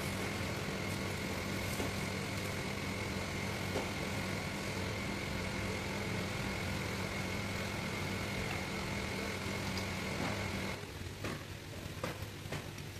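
Steady mechanical hum with a thin high whine that cuts off suddenly about eleven seconds in, followed by a few light clicks.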